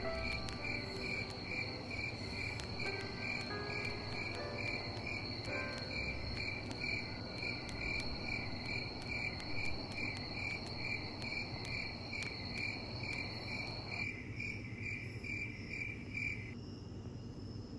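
Crickets chirping in an even rhythm, about two high chirps a second, under the last few notes of a music track; the chirping cuts off abruptly near the end.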